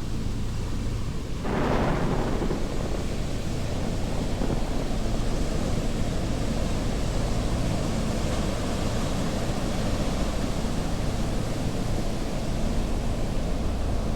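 Steady, dense rumbling noise from a sound-effects track, with a brief swell about one and a half seconds in.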